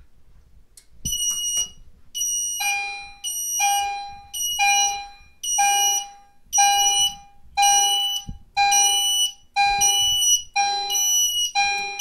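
EST Genesis chime strobe sounding in alarm: an electronic chime of several tones struck about once a second, each stroke fading before the next. The fire alarm panel is in alarm from a pulled pull station.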